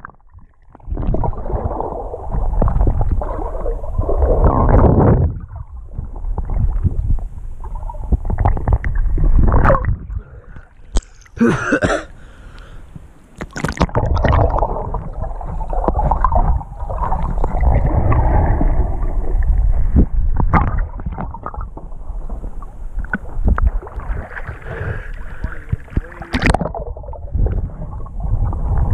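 Muffled underwater sound from a camera held below the surface while a person swims: uneven low rumbling and gurgling of moving water in surges, with a few sharp clicks and knocks.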